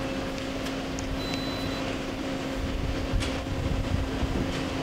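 Daewoo Puma 300LC CNC turning center powered up, giving a steady two-tone machine hum. A few light clicks and a knock about three seconds in.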